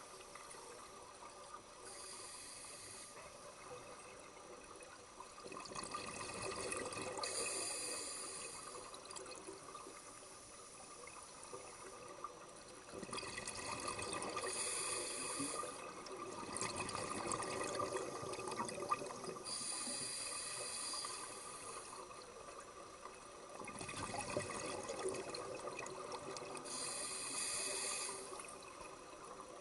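Scuba diver breathing through a regulator underwater: a short hiss of each inhale, then a longer rush of exhaled bubbles, repeating about every six seconds.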